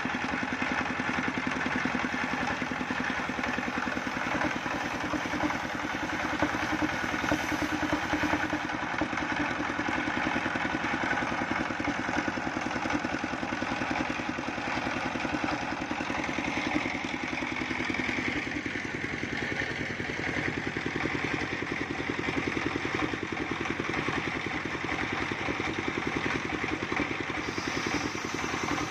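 Single-cylinder horizontal diesel engine running steadily, driving a trailer-mounted circular sawmill as coconut trunk is fed through the blade and cut into beams.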